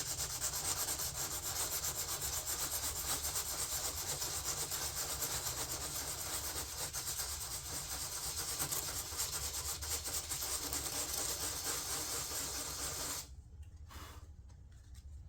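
Sandpaper sanding a fiberglass and epoxy door panel: a steady scratching that stops abruptly near the end. This is light sanding to level the surface and bring out the edges of a low spot before filling.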